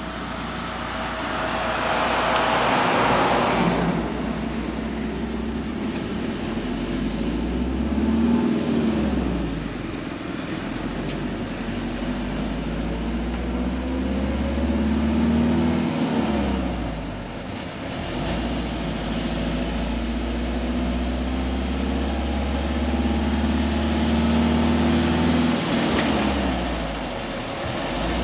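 Pickup-truck songthaew's engine accelerating through its gears, heard from the open rear passenger bed: the engine note climbs and drops back three times at the gear changes, holding steady between the later ones, over road and wind noise. A brief rush of noise comes between one and four seconds in.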